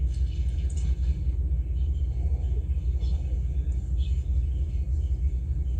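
A steady deep rumble with no speech over it, the same background hum that runs under the talk around it.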